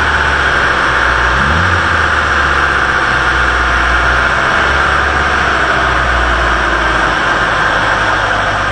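Opel GT 2.0's engine running at a steady speed on a chassis dynamometer, with a loud steady rushing noise over it.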